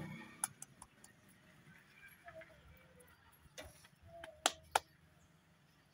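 Sorghum dough being worked into a ball by hand over a steel plate: a handful of light, sharp taps and clicks, two of them close together about four and a half seconds in.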